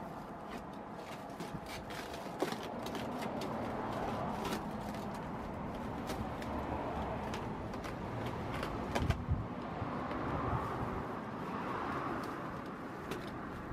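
Hands repairing a burst copper pipe, wrapping tape and fitting hose clamps: scattered small clicks and rustles, with a sharper knock about two seconds in and another about nine seconds in, over a steady outdoor background noise.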